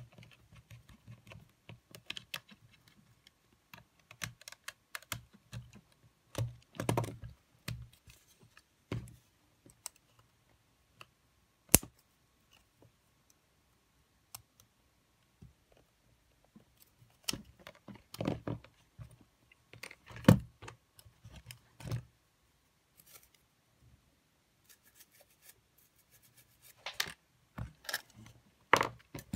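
Irregular small clicks, taps and handling knocks from tools and plastic and metal parts of a disassembled Sony cassette Walkman being worked on by hand, in short clusters with a couple of louder sharp clicks.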